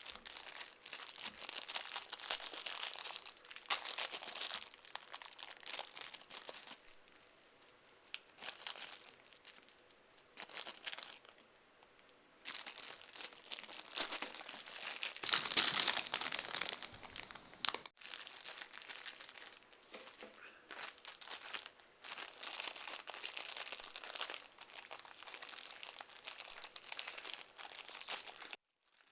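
Plastic packaging crinkling and crackling as it is handled and torn, in stretches of a few seconds with short pauses between them.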